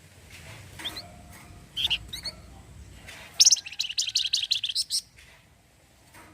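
Flamboyan (wergan jawa) songbird giving a few short high chirps, then its rapid rattling 'cretet' chatter, about ten notes a second, for about a second and a half.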